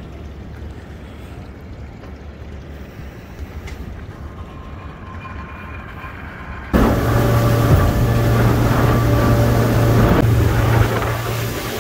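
A boat's outboard motors at a low steady rumble, then an abrupt cut about seven seconds in to twin 200 hp outboards running at speed: a loud steady engine drone over rushing wake water and wind.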